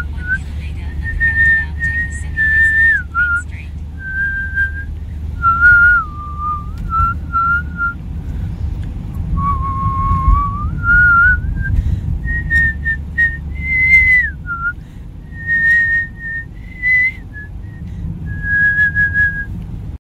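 A person whistling a slow melody by mouth, in held notes joined by short slides with brief breaks between phrases. Underneath runs the steady low rumble of a car driving, heard from inside the cabin.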